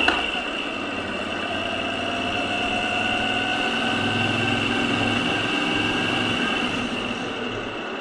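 Moto Guzzi V7 Stone's air-cooled transverse V-twin running under way as the bike is ridden, with road and wind noise. The sound builds to about the middle, then eases off toward the end.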